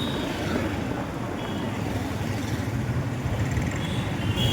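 Steady low rumble of wind and engine noise from a moving motorcycle in road traffic, with two brief faint high tones, one about a second and a half in and one near the end.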